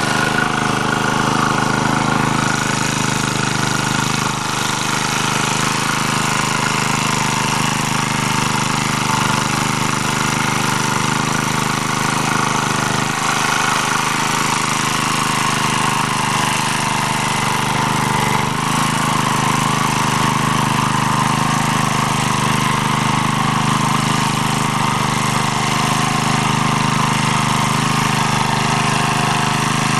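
MD3 walk-behind tractor's engine running steadily under load as its tiller rotors mill garden soil in first gear.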